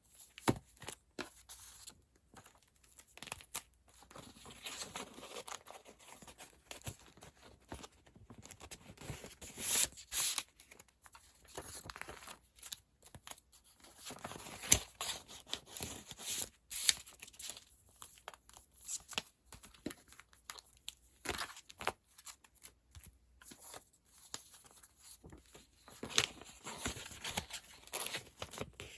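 Packing materials being handled by hand: irregular crinkling, rustling and tearing with small sharp clicks and taps, loudest about ten seconds in and again near fifteen seconds.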